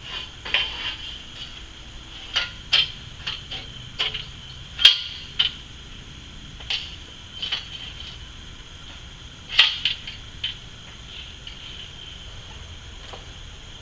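Hand tools clinking and knocking against metal fittings during roof repair work: about a dozen sharp, irregular clicks and taps, the loudest about five seconds in and just before ten seconds. A steady high insect drone runs underneath.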